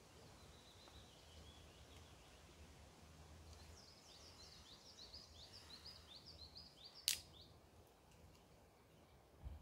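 Faint songbird singing: a few thin notes, then a rapid run of short chirping notes lasting about four seconds. A single sharp click about seven seconds in, over a low rumble and otherwise near silence.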